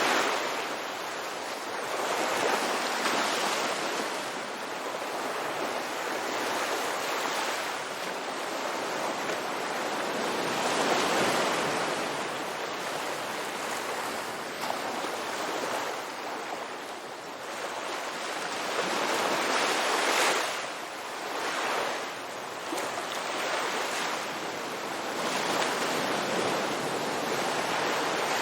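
Ocean waves breaking on a beach, a steady wash of surf that swells and recedes every few seconds.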